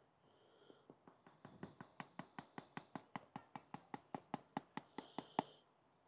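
Old Bay seasoning tin with a plastic shaker lid shaken over a plate: a faint, even run of light taps, about five a second, lasting about four seconds.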